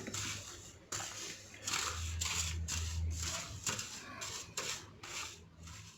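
Hands mixing a dry rub of sugar, salt and spices in a foil-lined pan: irregular rustling, scraping strokes, with a low hum underneath.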